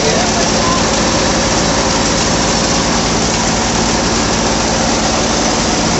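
John Deere 5055E tractor's three-cylinder turbo diesel running steadily under load at about 2200 rpm, driving a Sonalika wheat thresher through its PTO shaft; a loud, even mechanical drone of engine and thresher together.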